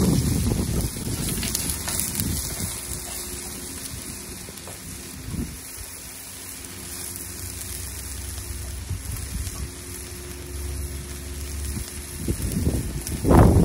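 Chicken parmigiana and potato chips frying in a tray on a portable gas cooker: a steady sizzle.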